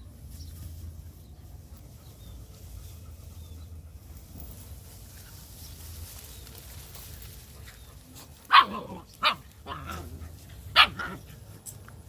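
A dog barking: three loud, short barks starting about eight seconds in, with a fainter bark between the last two.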